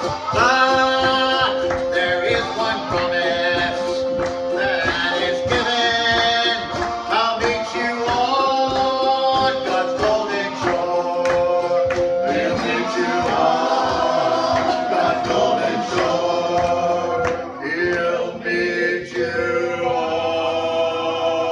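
Male voices singing together in harmony, with long held notes, over strummed string accompaniment that includes a cigar box guitar.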